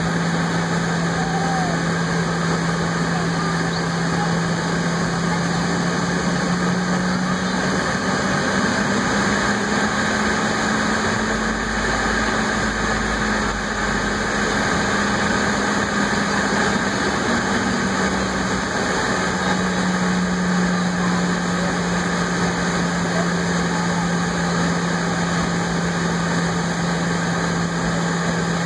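Airliner jet engines at low taxi power, heard inside the passenger cabin as the plane taxis: a steady drone with a hum that rises a little in pitch partway through and settles back, and a brief deeper rumble in the middle.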